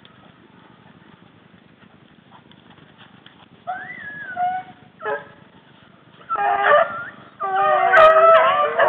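Rabbit hounds baying as they run a rabbit's scent: a single long bay about four seconds in, a short yelp, then several dogs open up together and their voices overlap into a loud chorus near the end.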